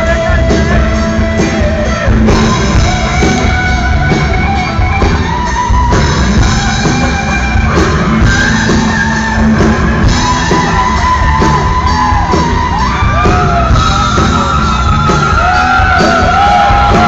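A rock band playing loudly live, with drums and a singer's voice over the music.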